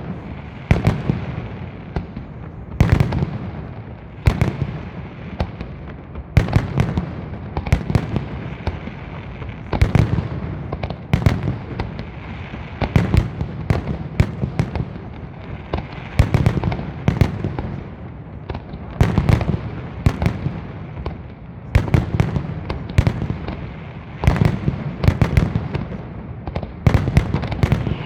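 Aerial fireworks display bursting in a continuous barrage: sharp bangs several a second without a break.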